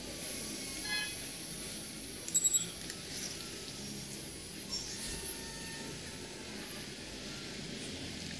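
Small S7 quadcopter's propellers whining high, the pitch wavering as it manoeuvres. About two and a half seconds in come three short, sharp electronic beeps, the loudest sound.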